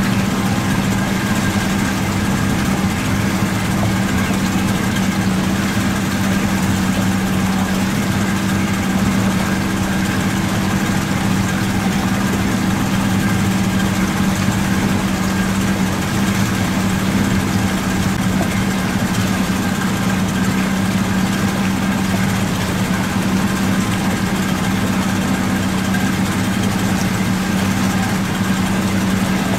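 Boat engine running steadily, an even drone with a constant hum that holds one pitch.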